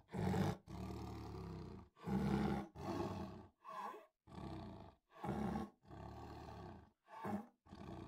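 Lionesses roaring: a series of about ten short calls, louder and softer ones alternating.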